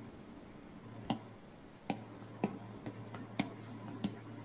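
Faint, irregular light clicks, about one a second, over a low steady hum: a stylus tip tapping on a tablet screen as lines are drawn.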